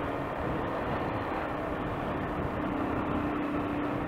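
Motorcycle engine running at a steady speed while riding, with a constant engine note under wind and road noise on the handlebar-mounted microphone.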